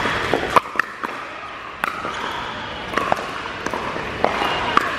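Pickleball paddles striking the plastic ball: about six sharp, separate pops, irregularly spaced, from this rally and from neighbouring courts.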